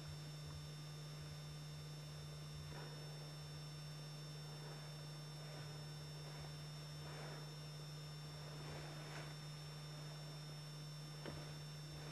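Low steady electrical-type hum with an even background hiss, with a few faint ticks scattered through it.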